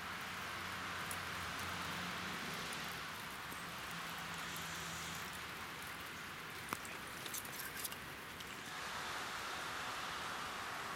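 Steady light rain falling, with a few sharp ticks a little past the middle.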